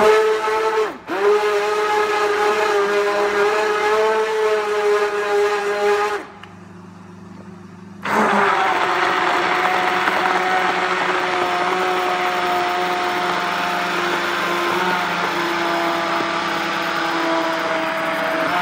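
Hand-held stick blender running in a jug of tomato soup, blending it smooth. It runs for about six seconds with a brief dip about a second in, stops for about two seconds, then starts again and runs on.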